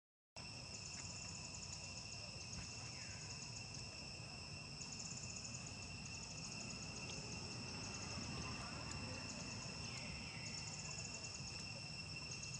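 Insects: a steady high-pitched drone, with bursts of rapid high chirping every few seconds, over a low background rumble.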